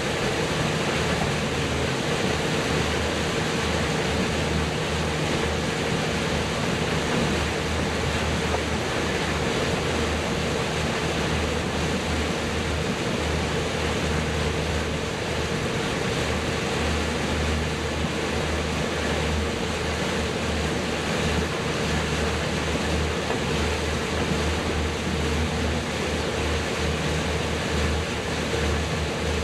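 Motorboat under way: the engine running steadily with a low throb and a steady hum, over the rush of water past the hull and wind on the microphone.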